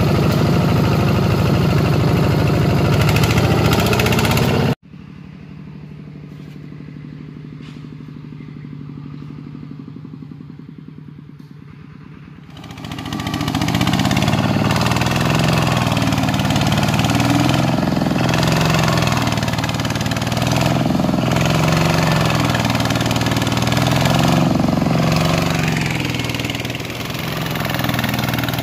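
Two-wheel walking tractor's single-cylinder diesel engine running loudly under load. After a sudden cut about five seconds in it runs quieter and steadier, then comes back loud with its pitch rising and falling repeatedly as it labours and the wheels churn through deep mud.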